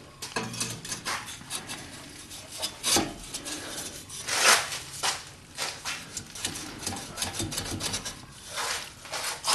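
Irregular scraping and rubbing as a new exhaust pipe, fitted with a rubber piece, is pushed and worked by hand over the Y pipe in a tight space, with a few louder scrapes.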